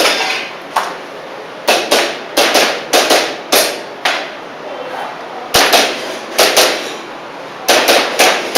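Airsoft pistol shots fired in quick pairs with short pauses between strings, each shot a sharp crack with a short ring after it.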